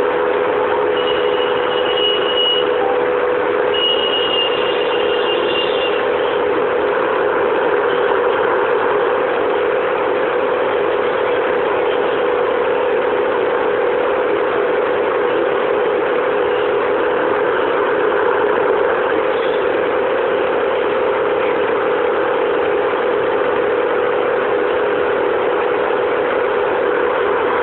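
A steady mechanical hum with a low drone that never changes, like a motor or fan running. Two brief high whistling tones sound about one and four seconds in.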